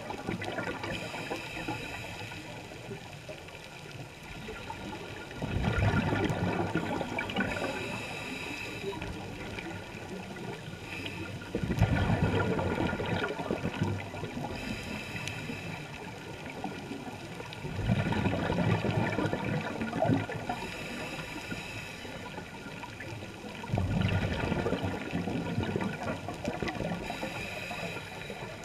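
Scuba diver breathing through a regulator underwater. A hissing inhale alternates with a gurgling rush of exhaled bubbles, in a regular cycle with four exhales about six seconds apart.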